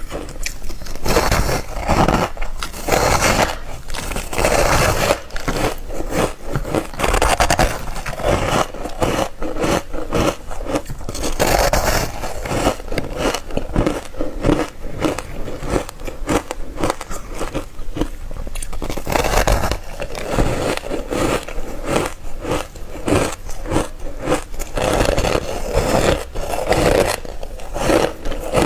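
Close-miked bites into ice, one after another: a steady run of crunches and squeaky scraping as teeth break the ice.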